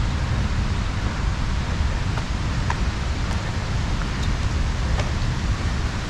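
Wind on the microphone: a steady rushing noise with a heavy low rumble, with a few faint ticks.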